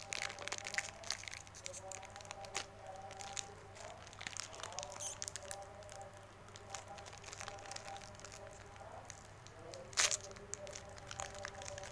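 Plastic wrapper of a Beng-Beng chocolate bar crinkling and crackling as it is worked and torn open by hand. A sharp crackle about ten seconds in is the loudest moment.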